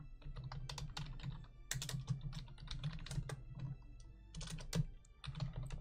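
Typing on a computer keyboard: a quick, uneven run of key clicks, with a short pause about four seconds in.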